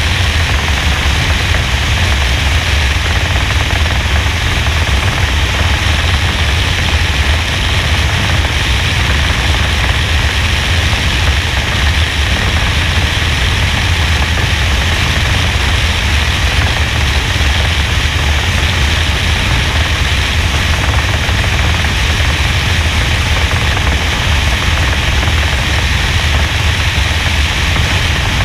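NASCAR stock car's V8 at racing speed, heard as a loud, steady rush of wind buffeting and engine noise through a roof-mounted GoPro's microphone, with throttle lifts hard to make out.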